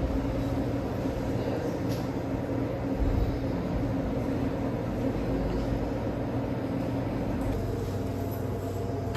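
Steady low mechanical hum with several held low tones, typical of refrigeration and ventilation machinery running in a room, with a faint click about two seconds in.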